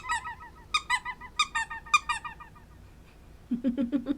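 Rubber squeaky dog toy squeezed over and over, quick high squeaks about five or six a second in two runs, then a short run of lower-pitched pulsing sounds near the end.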